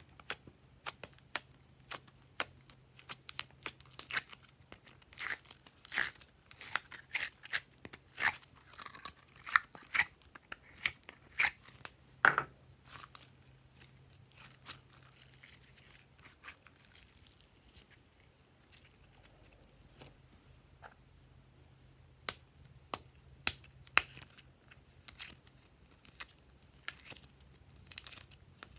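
Hands squeezing and kneading glossy slime mixed with glitter slime, making irregular sticky pops and crackles. The pops come thick for the first dozen seconds, thin out in the middle, and pick up again after about twenty-two seconds.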